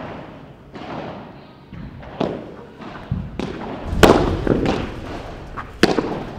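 Padel ball struck back and forth with padel rackets in a rally: a series of sharp pops, each with a short echo. The loudest hits come about four seconds in and again near the end.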